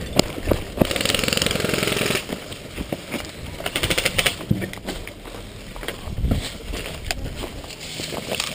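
Bursts of full-auto airsoft gunfire: a rapid, even run of clicks about a second long near the start and a shorter burst around the middle. Under them are footsteps and bodies brushing through tall grass.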